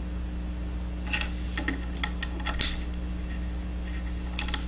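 Light metallic clicks from the folding tools of a Victorinox Climber Swiss Army knife being handled and opened, a few scattered clicks with the loudest about two and a half seconds in, over a steady low hum.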